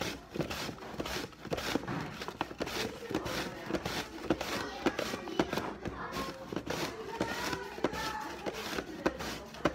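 Plastic storage container and apple slices being handled: a run of sharp clicks and knocks as hands pick through the slices and bump the container and its lid. Voices chatter in the background.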